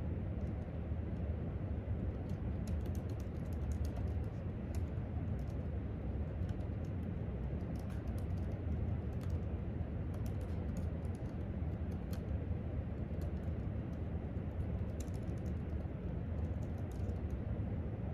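Typing on a laptop keyboard: irregular, light key clicks coming in runs and pauses, over a steady low background rumble.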